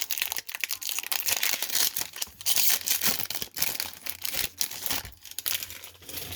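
A plastic baseball-card pack wrapper being torn open and crinkled in the hands: a dense, irregular crackling that thins out near the end.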